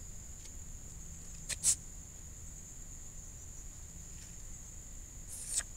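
Insects outdoors keep up one steady high-pitched drone. Two short sharp sounds break in, about a second and a half in and again near the end.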